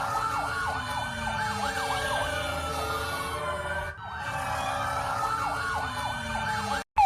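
Emergency alert alarm of overlapping sirens, several tones gliding slowly up and down in pitch with quick rising sweeps among them. It drops out briefly about four seconds in and the same pattern starts over.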